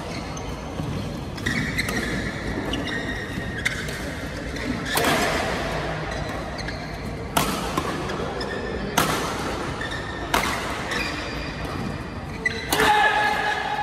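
A badminton doubles rally: sharp racket strikes on the shuttlecock about every one and a half to two seconds, each echoing in a large hall. Between the hits, shoes squeak on the court floor as the players lunge.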